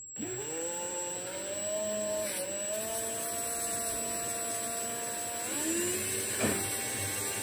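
Milwaukee M18 cordless drill spinning up at low speed and running with a steady whine, turning a brass pendulum bob on a shop-made chuck against hand-held sandpaper. The trigger is worked by hand, so the speed shifts slightly twice. There is a short click near the end.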